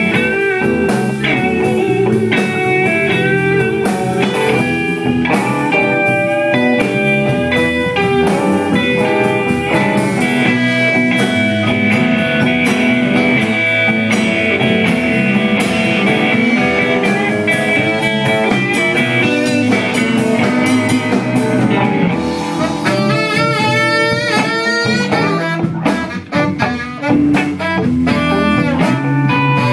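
Blues band playing live: guitar lines over a drum kit, with a stretch of quick wavering, bending notes near the end.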